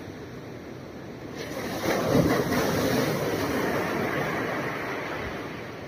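Waves breaking on a sandy beach: steady surf noise, with one wave surging in about a second and a half in, peaking and then washing out slowly over the next few seconds.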